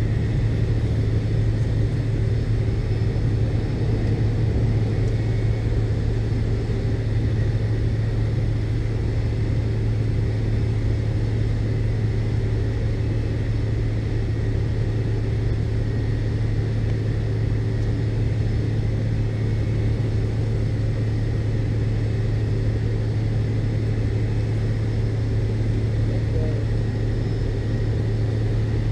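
Steady engine hum and cabin noise of a McDonnell Douglas MD-82 airliner, heard from inside the passenger cabin, with its rear-mounted Pratt & Whitney JT8D turbofans running at a constant setting. A strong low drone holds even throughout, with no spool-up or change in pitch.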